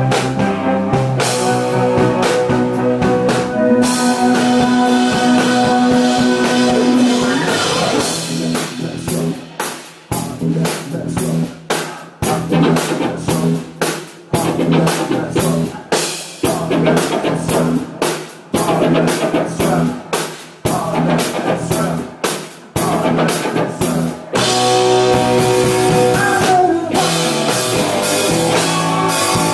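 Live rock band playing electric guitar and drum kit. Sustained chords give way to a long stretch of stop-start stabs with brief gaps, and the full band comes back in near the end.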